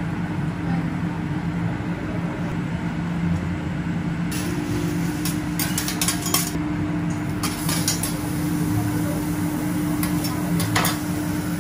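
Metal teppanyaki spatulas scraping and clacking on a steel griddle while chopping rice into fried eggs, in quick runs of clicks through the middle and once more near the end. A steady low hum runs underneath.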